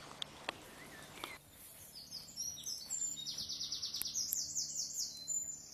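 Songbird singing high, rapid trills of quickly repeated notes, phrase after phrase with short gaps, starting about a second and a half in. Before that, a couple of faint clicks over a background hiss.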